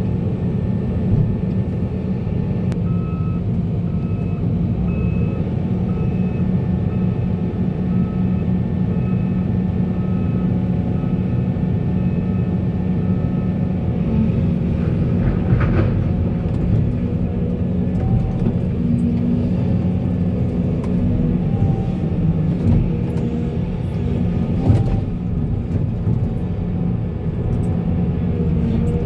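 Heavy earthmoving machinery: a large diesel engine running steadily under load, with an alarm beeping about once a second for roughly ten seconds early on. A few sharp knocks follow later, one about halfway through and one near the end.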